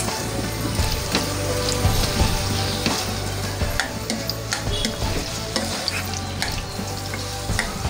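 Potato chunks sizzling in hot cooking oil in a non-stick frying pan, stirred with a spatula that scrapes and taps against the pan in frequent small clicks.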